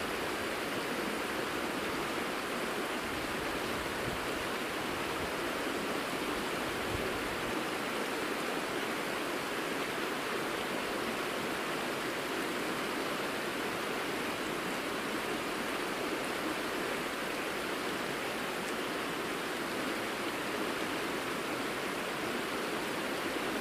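Shallow mountain river flowing over a gravel bed: a steady, even rush of water.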